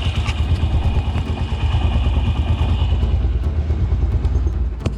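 Yamaha YBR125 single-cylinder four-stroke engine idling with a steady, even beat, with no timing chain rattle after a new cam chain tensioner was fitted. It stops abruptly near the end.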